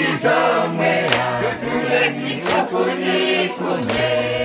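A group of voices singing a church song in Oshiwambo, with a sharp beat about every second and a half.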